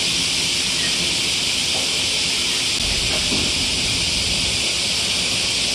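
A steady, loud hiss fills the sound, with faint low murmuring beneath it. A couple of faint crunches and a low thump about halfway through come from the giant panda chewing bamboo.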